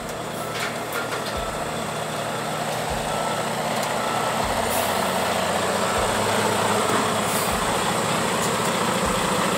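Dump truck reversing, its diesel engine running steadily under a repeating backup alarm beep.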